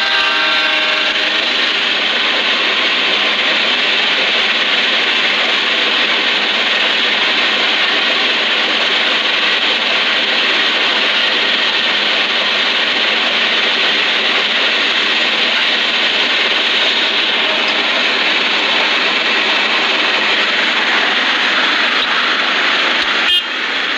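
A pitched blast from a locomotive horn dies away about a second in. It is followed by the steady, loud running noise of a train going by on the rails, with a brief click near the end.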